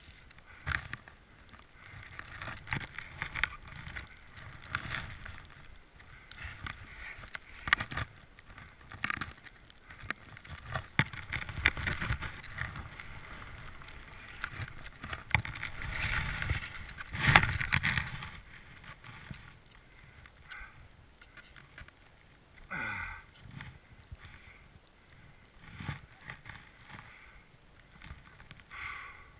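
Skis turning through deep powder snow: an uneven swishing hiss of snow spraying off the skis, growing louder for several seconds in the middle of the run.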